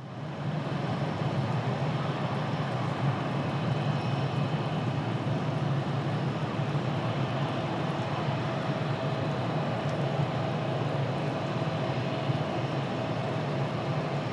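Steady jet aircraft engine noise, with a faint whine held throughout and no rise or fall in level.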